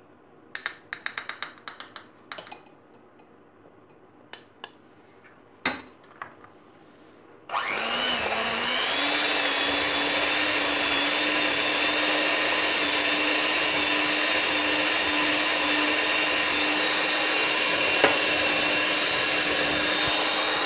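A run of sharp clicks, then a handheld electric mixer starts about seven and a half seconds in, its pitch rising briefly as it comes up to speed. It then runs steadily, whisking eggs and honey in a glass jug, and stops near the end.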